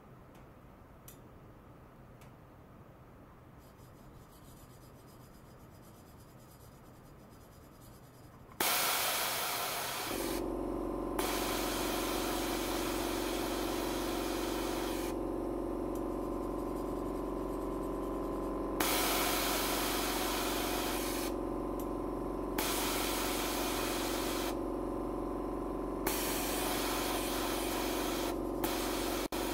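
Stainless steel pipe vibrating under an ultrasonic probe driven with a combined sound-and-ultrasound signal. It is faint at first, then comes on suddenly and loudly about a third of the way in. It settles into a steady hum with a few level tones, and a high hiss switches on and off in blocks of a few seconds.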